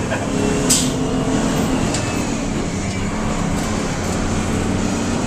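Crown school bus engine running steadily under way, heard from inside the driver's cab, with one sharp click about a second in.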